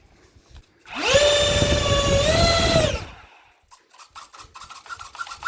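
Small electric motors of a toy RC fighter jet whirring for about two seconds, their pitch stepping up slightly before they stop.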